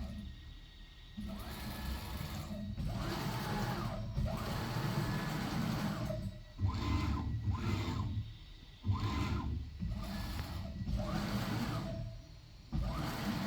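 Onefinity CNC router's stepper motors driving the gantry in a run of separate jog moves, each a second or two long with short pauses between, the motor whine rising and falling in pitch as each move speeds up and slows down.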